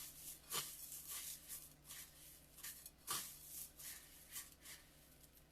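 Chicken tenders being pressed and turned in crushed cornflakes: faint, irregular crunching and rustling. A low steady hum runs underneath.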